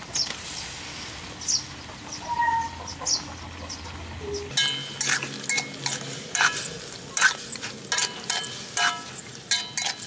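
Metal ladle stirring in a steel wok, knocking and scraping against the pan in quick irregular clinks that ring briefly, starting about halfway through.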